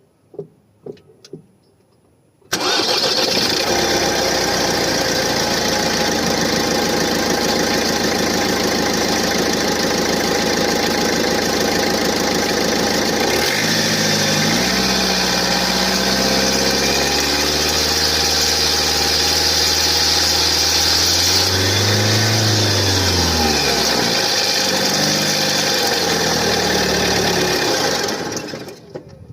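Opel Astra K's 1.6 litre four-cylinder diesel engine starting cold about two seconds in and running with a loud rustling, partly metallic noise; in the second half the engine speed rises and falls a few times before the engine stops near the end. The owner hears this rustling only while the engine is cold, and it disappears once the coolant reaches about 70 °C.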